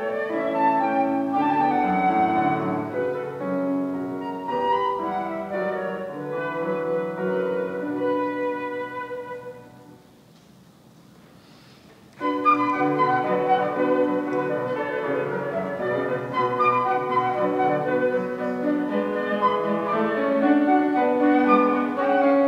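Concert flute and grand piano playing classical music together. About ten seconds in, the music dies away into a pause of some two seconds, then comes back in sharply.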